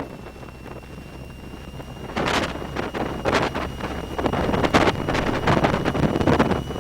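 Wind buffeting the microphone over a steady low rumble, with gusts getting louder about two seconds in.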